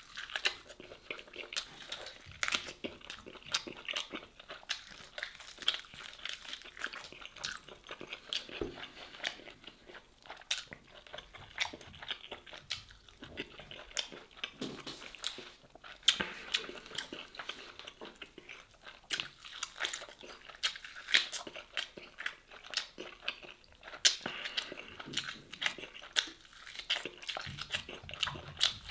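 A man biting and chewing smoked beef short rib meat, with many short, irregular mouth clicks and smacks.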